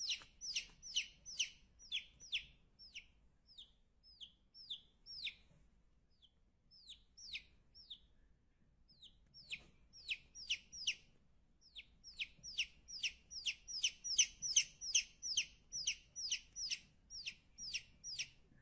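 Baby chick peeping over and over, each peep a short high note that falls in pitch. The peeps come about two to three a second, thin out for a few seconds midway, then pick up again faster and louder.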